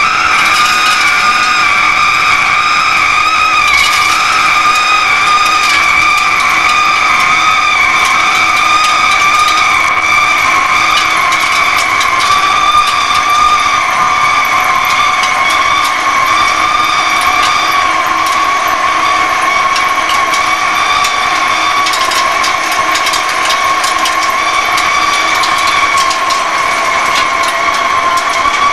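Hegenscheid 105 underfloor wheelset lathe turning a railway wheel, giving a loud steady high-pitched squeal that wavers slightly and drifts slowly lower. Scattered crackles come in the second half.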